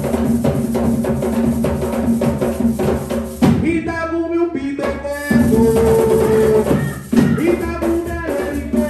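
Traditional Palenquero dance music played live: a steady beat on hand drums, with voices singing over it from about the middle on, including long held notes.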